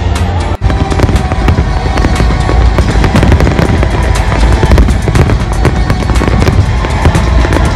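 A dense fireworks barrage: rapid, overlapping bangs and crackles with deep booms underneath, alongside music.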